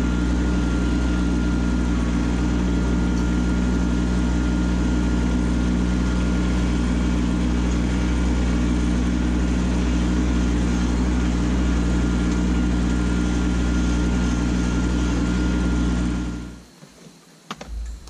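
Kubota B2601 compact tractor's three-cylinder diesel engine running steadily at constant speed while driving, with a thin steady whine above it. The sound cuts off near the end.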